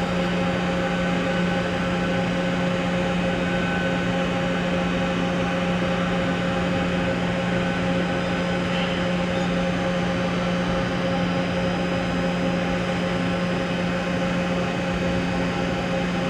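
Toshiba BP-130.P40 CNC horizontal boring mill running under power, a steady machine hum with a strong low drone and several fainter steady higher tones.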